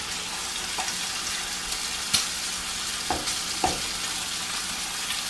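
Bubble and squeak (mashed potato, cabbage and onion) sizzling steadily as it fries in oil in a non-stick frying pan, while a wooden spatula stirs it, scraping and knocking against the pan a few times.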